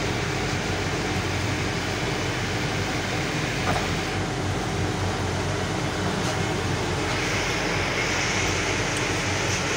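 Truck's diesel engine running steadily with tyre and road noise, heard from inside the cab while driving.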